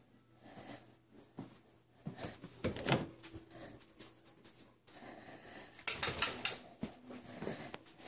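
Handling noise from a handheld camera being moved about: scattered light knocks and rustling, with a louder rustling scrape about six seconds in.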